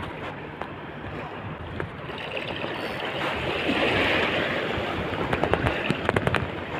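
Wind blowing over the microphone together with the wash of open sea water, swelling about halfway through, with a few light clicks near the end.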